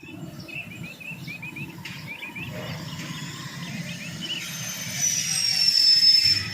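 Small birds chirping in quick runs of short notes. Near the end comes a long, high whistle that falls slightly in pitch and is the loudest sound.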